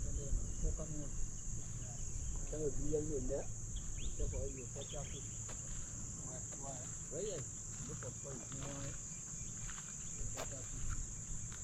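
Steady, high-pitched drone of insects calling without pause.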